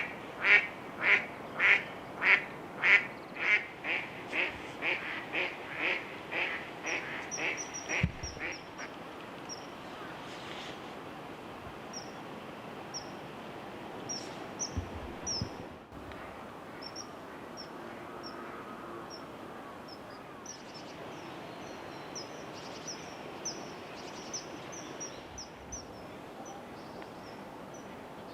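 A duck gives a long run of loud quacks, about two a second at first, slowing and fading away after about eight seconds. Short, high, thin calls, typical of the common kingfisher, then repeat every second or so over steady river noise.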